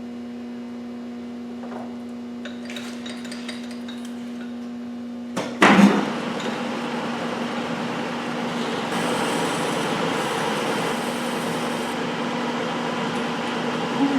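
Metalworking lathe humming steadily with light clicks and taps. About five and a half seconds in there is a loud metallic knock, and after it a louder, rougher machine running noise carries on.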